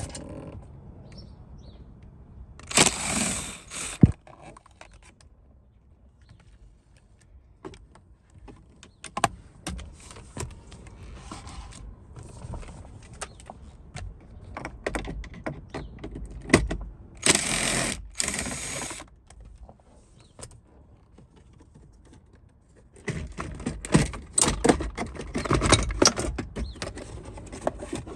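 Irregular clicks, knocks and rattles of plastic car interior trim pieces and their clips being handled and worked on, with two short bursts of scraping, one near the start and one about two-thirds through.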